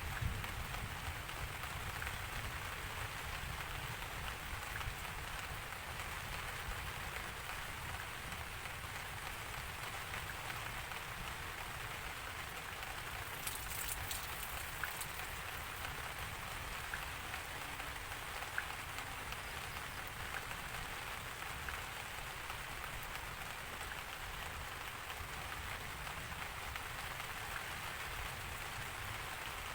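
Steady rain falling and pattering on a surface, an even hiss with a low undertone, and a brief crackle about halfway through.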